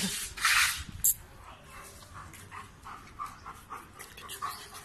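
Doberman moving about and breathing hard: a couple of loud scuffling noises in the first second, then a quick run of short soft huffs, about three or four a second.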